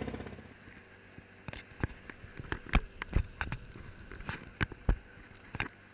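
Background music fading out, then a dozen or so light knocks and clicks at irregular intervals.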